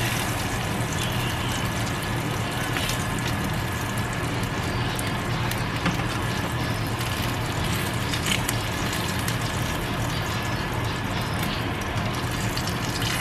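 Sausage patties and hot grease sizzling in a frying pan: a steady crackling hiss, with a low steady hum underneath.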